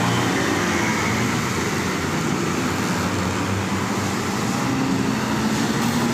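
A bus's engine running with heavy road noise as it drives past, loud and steady with no horn.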